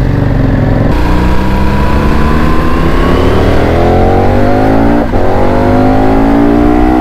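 KTM 1290 Super Adventure's V-twin engine accelerating hard, its pitch climbing steadily. About five seconds in it drops briefly at a gear change, then climbs again, with wind and road noise underneath.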